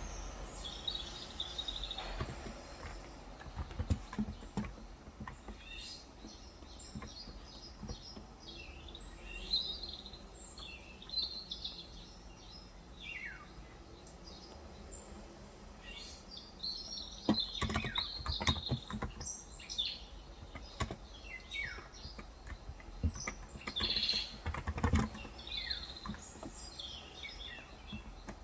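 Small birds chirping and calling throughout, many short notes and quick falling whistles. Keystrokes on a Cox Endeavor electro-capacitive (non-contact, 35 g) tenkeyless keyboard come in scattered clicks, with a denser run about two-thirds through and another near the end.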